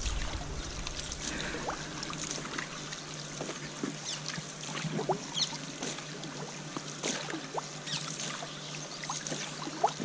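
Koi pond water trickling and splashing, with scattered small plinks and drips over a steady low hum.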